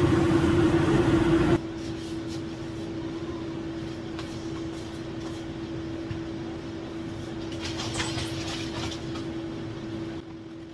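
Steady machine hum with one constant tone from running kitchen equipment. It is louder for the first second and a half, then drops abruptly to a lower, even level, with a few faint light clicks about eight seconds in.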